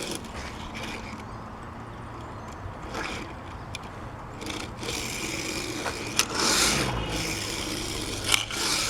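Die-cast Hot Wheels car rolling and sliding along a plastic track, a scraping, rolling noise that grows louder about halfway through, with a couple of sharp clicks.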